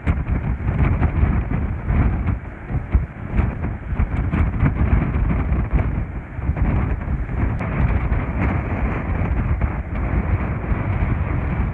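Strong wind buffeting the microphone, a loud low rumble that rises and falls in gusts.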